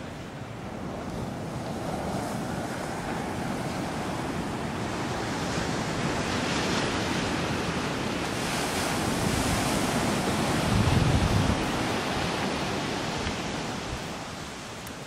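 Ocean surf breaking on a sandy beach, a steady wash that swells and eases, with wind buffeting the microphone, loudest about two-thirds of the way through.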